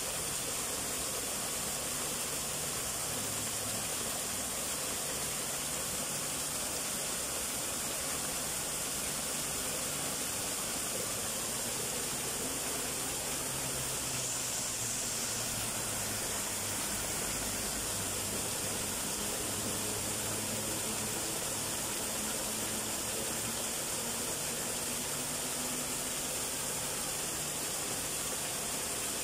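Small waterfall of two thin streams splashing into a shallow rock pool: a steady, even rush of falling water.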